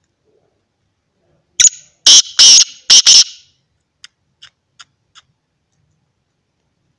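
Male black francolin calling: one loud, harsh phrase of about five notes, then four faint short ticks.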